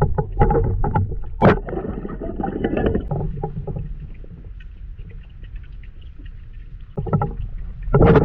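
Muffled underwater sound picked up by a submerged camera: a low rumble of moving water with crackling clicks and bubbling. It is busiest in the first few seconds, quieter in the middle, and has louder bursts about a second and a half in and again near the end.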